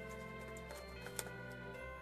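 Soft background music with long held notes, and a single faint click just after a second in.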